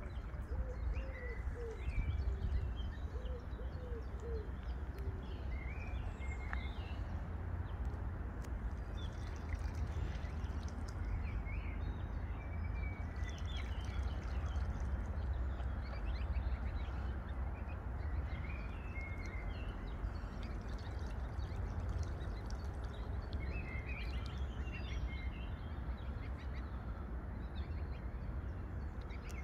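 Small birds chirping and calling on and off over a steady low rumble. In the first few seconds a pigeon coos a few low, repeated phrases.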